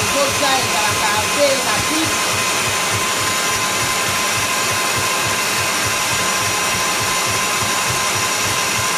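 Electric stand mixer running steadily, its whisk beating egg whites into meringue in a stainless steel bowl, with a steady motor whine.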